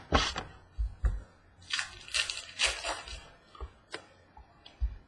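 Prizm World Cup soccer trading cards being handled and slid through the hands one by one: a run of short, irregular scraping and flicking sounds.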